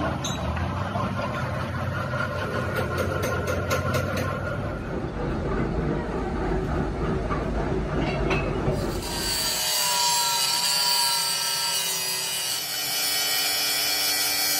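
Angle grinder cutting into the steel barrel of an excavator hydraulic cylinder, starting about two-thirds of the way in with a steady high whine and rasp. Before it there is low rumbling noise with a quick run of light ticks.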